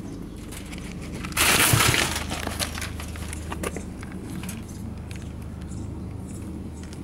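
A plastic sheet crinkling loudly for about half a second as it is lifted off a wire-mesh cat trap, followed by a few light clicks and rattles from the wire cage.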